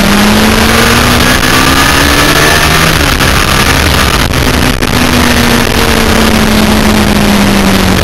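Yamaha FZR1000 inline-four racing motorcycle at speed, its engine note rising for the first few seconds, then after a short break held and slowly sinking, under heavy wind rush on the onboard microphone.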